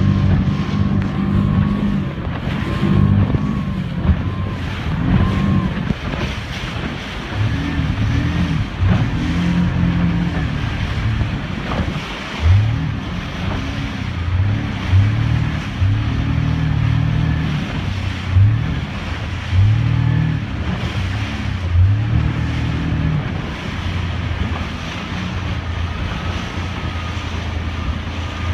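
Motorboat engine running, its pitch stepping up and down with the throttle and with several brief rising revs, over steady wind and water noise.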